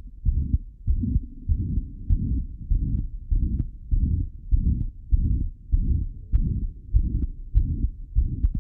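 Recorded heart sounds heard through a stethoscope at the aortic area: a diamond-shaped (crescendo–decrescendo) systolic ejection murmur, with the second heart sound still present. The low whooshing and thudding repeat evenly with each beat.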